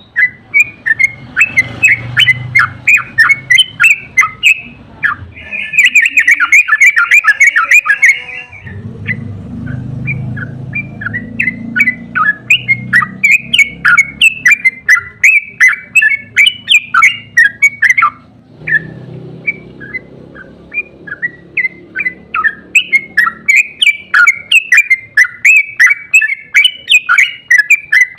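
Yellow-vented bulbul (trucuk) calling in long, rapid runs of chattering, bubbly notes, with a faster, denser burst about a quarter of the way in and a short break a little past the middle. A low rumble runs underneath.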